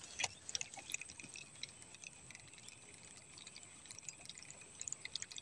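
Faint scattered ticking and clicking from a spinning fishing reel as a lure is cast and retrieved, with one slightly louder click about a quarter second in.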